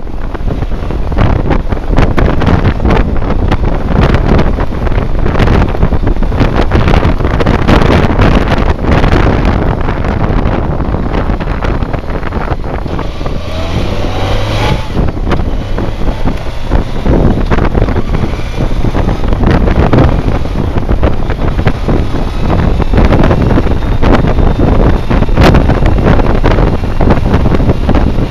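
BMW K1200R Sport motorcycle's inline-four engine running at road speed, buried under loud, continuous wind buffeting on the microphone.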